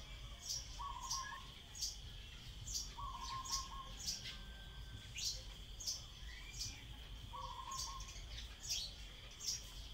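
Common tailorbird calling: sharp, high chirps repeated about twice a second. Under them run a steady high hiss and three short, lower buzzy notes.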